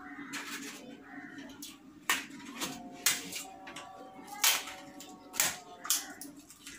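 Crisp papad (appalam) crunching as it is bitten and chewed: about six sharp, loud crunches starting about two seconds in, spaced half a second to a second apart.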